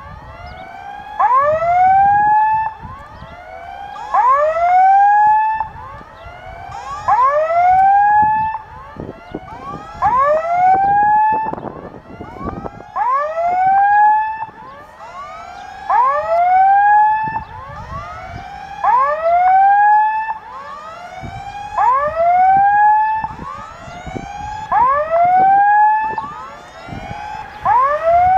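Electronic warning signal of a railway level crossing sounding a quick series of rising, whooping tones without a break, swelling and fading in waves every few seconds. It is the signal that a train is approaching and the barriers are down.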